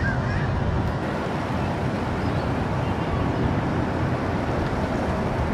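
Steady outdoor background noise, a low rumble with no distinct events.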